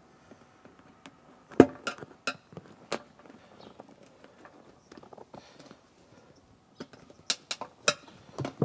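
Sharp clicks and snaps of seat-cover clips being worked onto the edge of a metal seat pan with a flathead screwdriver: about four around two seconds in, then another few near the end.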